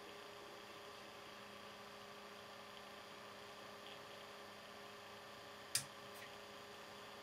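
Faint, steady electrical hum made of several steady tones. A sharp click comes about three-quarters of the way in, followed shortly by a fainter one.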